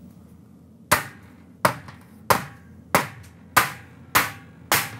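White rubber mallet tapping a fastener cover to snap it into a sliding glass door's jamb: seven sharp knocks, about one every two-thirds of a second, starting about a second in.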